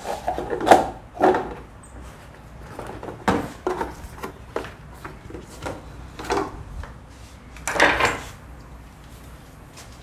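Irregular plastic clicks, knocks and scraping as gloved hands work a part loose inside a plastic water dispenser reservoir with pliers, the loudest knocks about a second in and near the end.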